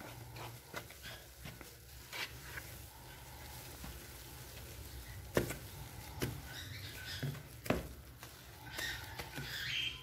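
A spatula stirring flour into a wet dough mixture in a plastic bowl: soft, irregular scraping and patter, with a few sharper taps of the spatula against the bowl in the second half.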